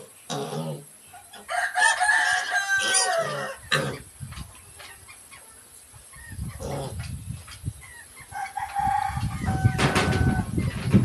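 A rooster crowing twice: a long crow about two seconds in, and a shorter call near the end over a low rumble.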